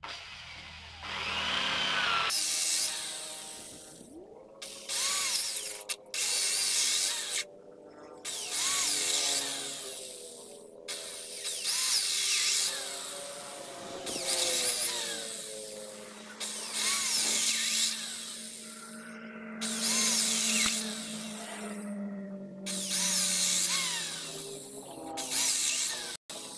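Handheld power drill boring into dry tree-branch poles, run in about ten bursts of a second or two each with short pauses between.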